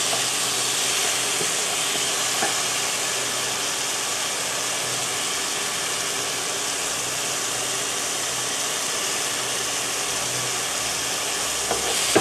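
Chicken of the woods mushroom pieces frying in olive oil, sizzling steadily, with a spatula stirring them through the pan.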